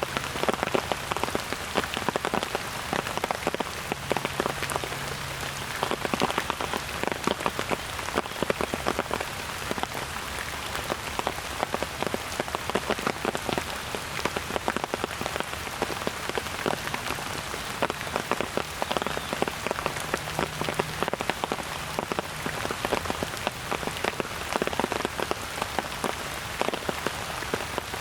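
Steady rain falling, with many sharp, close drop hits among the even hiss of the downpour.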